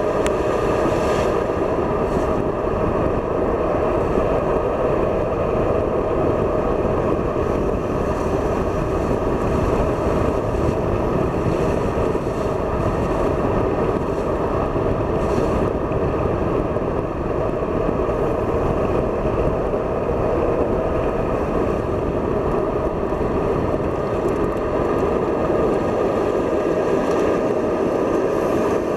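Steady driving noise of a BMW at circuit speed, engine, tyre and wind noise blended into one even rush with no clear revving or gear changes.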